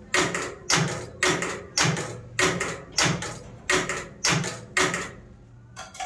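Electric gear-shifter actuator on a trike's gearbox clacking over and over, about ten sharp double clicks evenly spaced roughly every half second, stopping about five seconds in.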